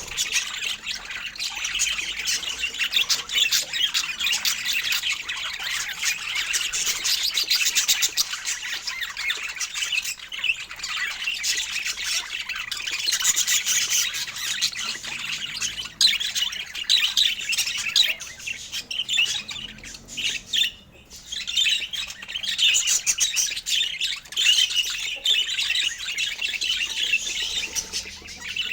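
Budgerigar chirping and chattering continuously in quick, warbling squawks, with a short break about two-thirds of the way through.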